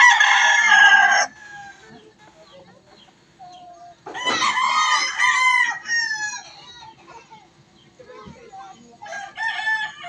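Gamecock roosters crowing: three long crows, the first ending about a second in, the next about four seconds in, and the last starting near the end. Each crow drops in pitch at its close.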